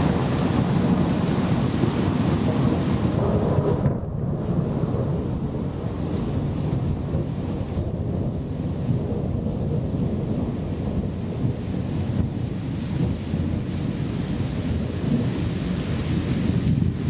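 Thunderstorm: steady heavy rain with a low rumble of thunder rolling through it. About four seconds in, the hissing upper part drops away suddenly and the deep rumble carries on.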